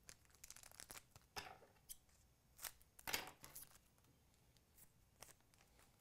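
Faint, short crinkles and tearing rustles of a foil trading-card pack wrapper being torn open by hand, with the cards inside handled.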